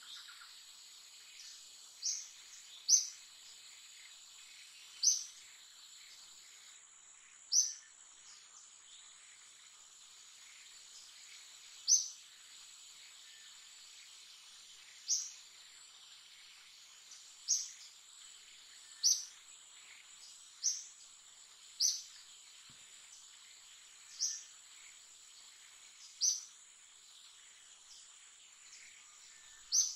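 Outdoor ambience: a bird gives about a dozen short, high chirps, one every one to three seconds, over a faint steady high insect drone.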